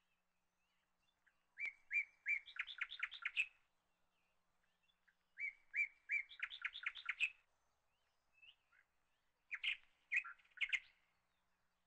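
A small bird singing: three runs of quick, high chirps. The first two runs are alike and about two seconds long; the third is shorter and comes near the end.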